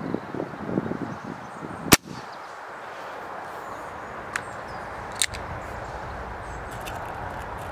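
A single sharp shot from an Air Arms ProSport spring-piston air rifle about two seconds in, followed by two much fainter clicks a few seconds later.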